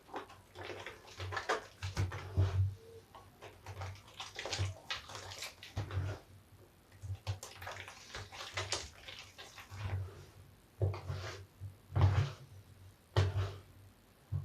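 A large soapy bath sponge being squeezed and kneaded with wet soap scraps, giving irregular wet squelches and foamy crackles. The loudest squeezes come near the end.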